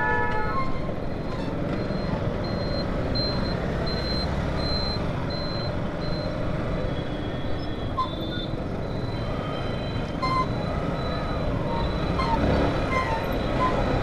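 Steady engine, wind and road noise from a motorcycle riding in city traffic. A repeated high beep, about two a second, sounds through the first half, and short horn toots come at the start and again about 8 seconds in.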